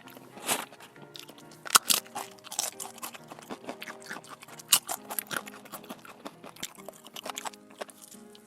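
Crunchy food being bitten and chewed: irregular crisp crunches, the loudest about two seconds in and just before five seconds. Soft background music plays underneath.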